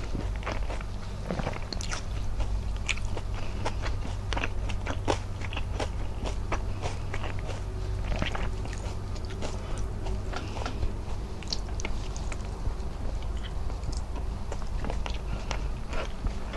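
A person chewing and smacking their lips on mouthfuls of rice and squid adobo, making many small irregular clicks in quick succession, while her fingers press and gather rice. A low steady hum runs underneath.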